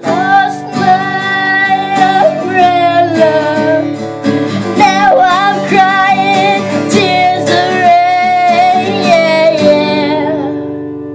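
A singer holds a long, loud wordless vocal line that bends and dips in pitch a few times, over strummed acoustic guitar. The voice fades out near the end.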